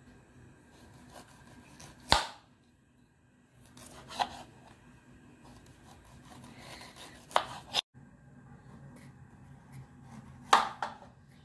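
Kitchen knife slicing fresh ginger into rounds on a plastic cutting board: about five sharp knocks of the blade on the board, a few seconds apart.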